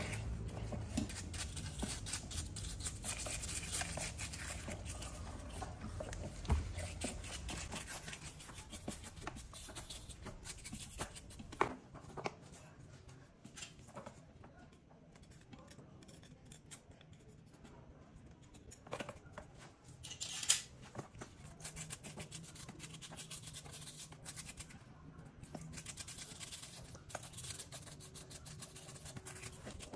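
Water splashing and sloshing in a shallow wash tray as a small part is swished and rubbed by hand, with a stiff bristle brush scrubbing it. The splashing is busiest in the first half, then it grows quieter, with a few light knocks.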